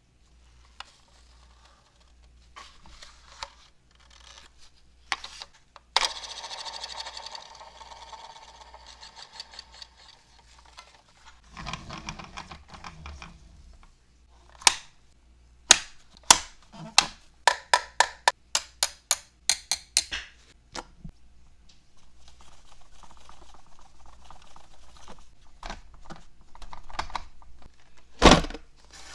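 Close-up handling noise from unboxing a diecast model car: rustling of packaging, then a quick run of sharp plastic-and-metal clicks, about three a second, and one louder knock near the end.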